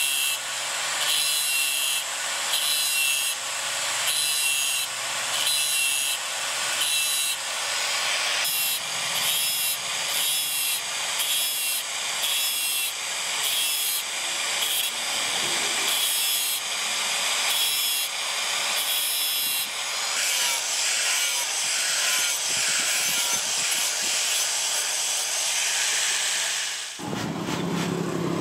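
Angle grinder with a thin cutting disc notching saw teeth into the spine of a steel machete blade, in short repeated cuts about once a second, then grinding more steadily for several seconds before it stops near the end.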